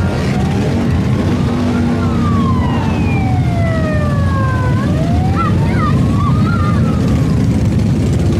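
A column of Harley-Davidson motorcycles rides past with their V-twin engines rumbling. Over them a siren wails slowly down and then back up through the middle.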